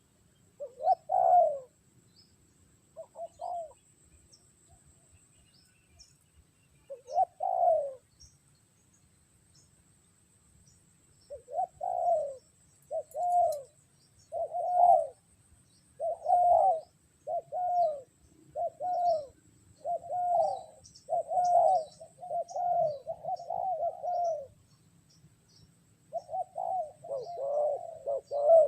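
Spotted doves cooing: a few separate coos in the first eight seconds, then from about eleven seconds a fast, steady run of coo notes, a little over one a second, which crowd together and overlap near the end. A faint high steady whine and small high chirps sit underneath.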